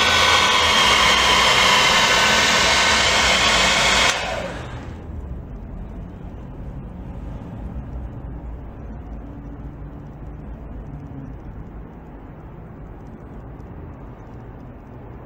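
A loud whirring motor with a high whine that stops abruptly about four seconds in, followed by a quieter low rumble.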